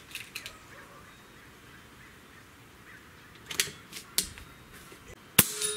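Xisico XS60C .22 calibre PCP air rifle firing one sharp shot near the end, after a few quiet clicks a little past halfway. A brief ringing tone follows the shot.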